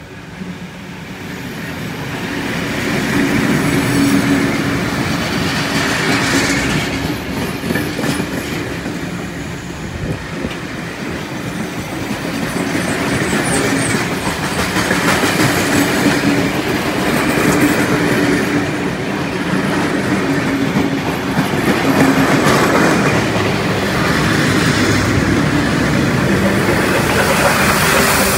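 Heritage passenger train passing close by, led by a diesel locomotive: carriage wheels clattering over the rail joints and the train rumbling past. It builds over the first few seconds as the locomotive draws near, then stays loud as the carriages and, near the end, the steam locomotive go by.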